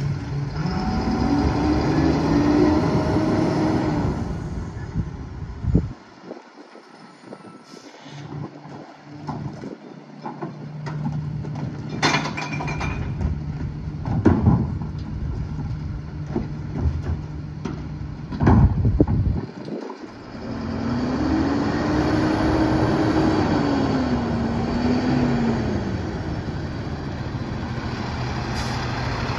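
Freightliner M2 rear-loader garbage truck running, its engine pitch rising and falling as it revs. A few sharp bangs come in the middle, typical of carts being knocked against the hopper as they are emptied. Later the engine revs up and down again as the truck pulls closer.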